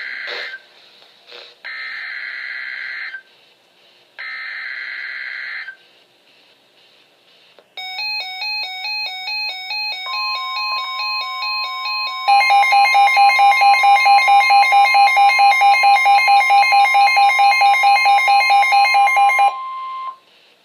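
Three NOAA Weather Radio SAME data bursts, harsh warbling digital tones about 1.5 s each, mark a new winter storm warning. A few seconds later an alert receiver's alarm sounds: first a stepped chime, then loud rapid beeping about three times a second. Under it runs the station's steady 1050 Hz warning alert tone, which starts about ten seconds in and stops just after the beeping ends.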